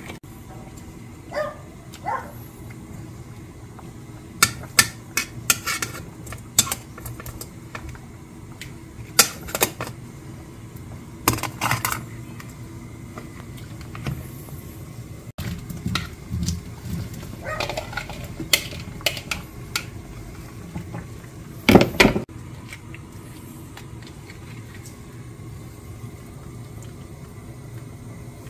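Kitchen handling sounds: a wooden spoon stirring and knocking in a ceramic bowl of chili-paste seasoning, then metal tongs clinking against a metal pot, heard as scattered knocks and clatters over a steady low hum. The loudest clatter comes about 22 seconds in.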